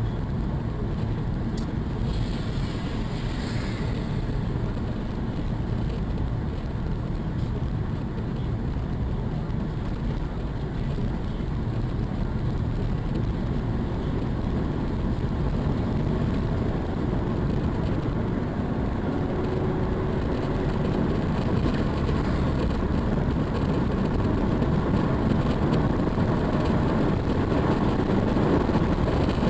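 Steady road and engine noise heard inside the cabin of a moving car: a low rumble that grows slightly louder over the last several seconds.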